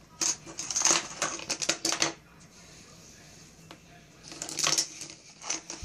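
Plastic-framed glasses clattering on a hard desktop as a cat bats them around and into a hole in the desk. The light knocks and rattles come in a quick run over the first two seconds, then in a shorter cluster about four and a half seconds in.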